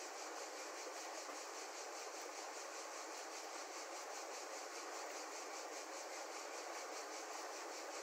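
Broad, fast-flowing river rushing over rocks and shallow rapids, a steady, even wash of water noise.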